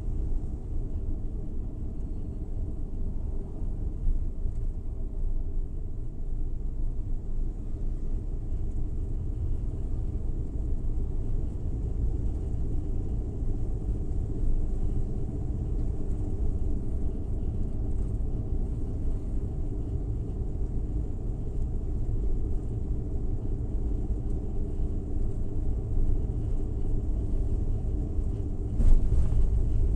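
Suzuki Every Wagon driving along the road: a steady low rumble of engine and road noise, with one brief knock near the end.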